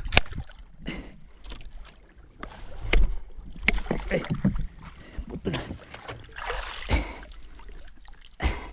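A large hooked marlin thrashing alongside a small wooden boat: water splashing, with several sharp knocks against the hull.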